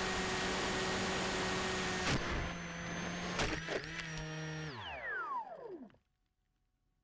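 Electric motor of an FPV model plane running with a steady whine and rushing airflow, then a crash into brush about two seconds in with a couple of sharp knocks. The motor keeps running after the impact, then winds down in a falling whine and stops about six seconds in.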